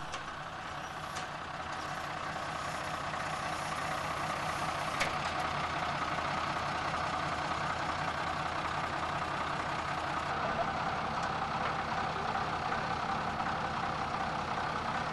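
Fire truck engine running steadily at idle, with a regular low throb, to power the aerial ladder and basket; a single short click about five seconds in.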